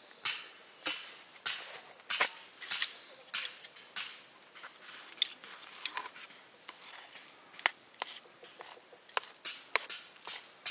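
Repeated sharp chopping knocks, about two a second and unevenly spaced.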